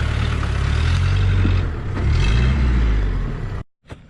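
Off-road 4x4's engine running hard under load, its pitch shifting as it revs about two seconds in. The sound cuts off abruptly about three and a half seconds in.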